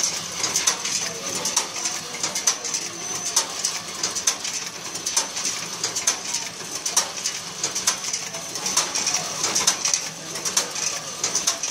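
Vertical form-fill-seal pouch packing machine running, pulling printed film over its forming tube, with a steady high-pitched whine and irregular mechanical clicking.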